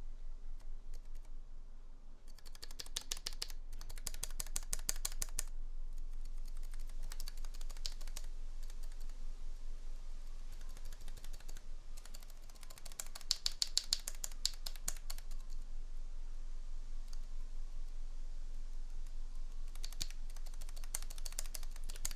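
Key on a KBD67 MKII mechanical keyboard, fitted with a freshly relubed stabilizer, pressed over and over in several quick bursts of clicks. It is being tested for stabilizer rattle, and the sound is judged good.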